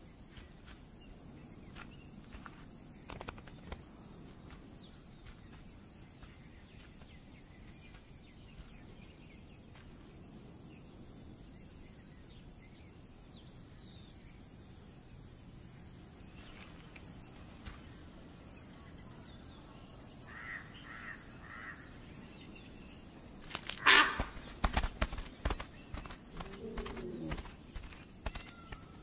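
Dry-forest ambience: small birds chirping again and again over a steady high insect drone. About 24 s in comes a loud burst of crackling and snapping in dry leaf litter and twigs lasting a few seconds, followed by a short low call.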